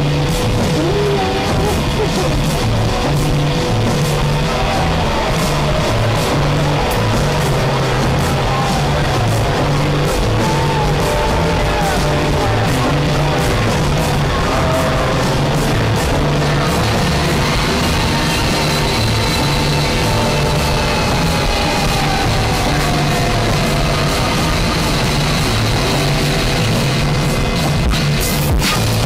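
Power-noise music: a loud, dense wall of distorted noise over a choppy, pulsing bass, with wavering tones gliding up and down above it.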